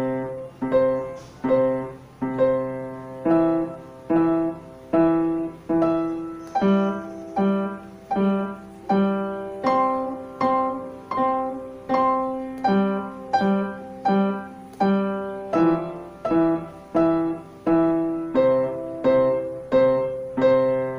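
Upright piano playing slow, even left-hand arpeggios in C major (do, mi, sol, do), about one note a second, with the notes ringing on under the held right-hand chord; the broken chord shifts to other harmonies partway through and returns near the end.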